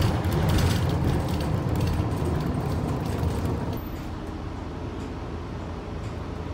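City bus heard from inside the cabin: engine rumbling and the cabin rattling, louder for the first few seconds, then settling to a quieter steady hum about four seconds in.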